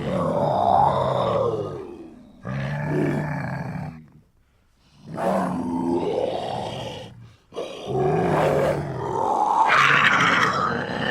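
Leopard growling and calling: a series of pitched growls, each one to two seconds long, with a short silent pause about four seconds in and a longer call near the end.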